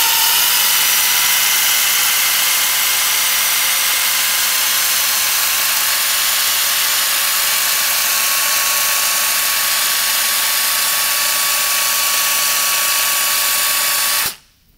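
Air-powered 3M Dynamic Mixing body filler gun running steadily, a loud hiss with a steady whine, as it pushes mixed filler and hardener out through its mixing tip; it cuts off suddenly near the end.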